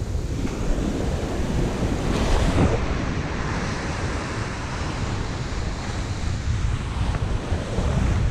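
Surf breaking and washing up a sand beach, with strong wind buffeting the microphone in a low rumble. A wave breaks louder about two seconds in.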